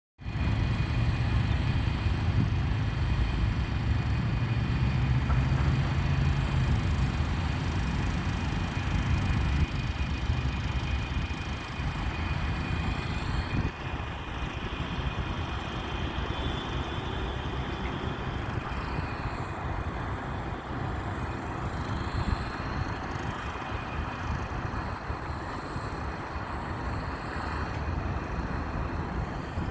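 Steady vehicle noise with a low rumble, continuous throughout, with a faint gliding pass-by sound around two-thirds of the way in.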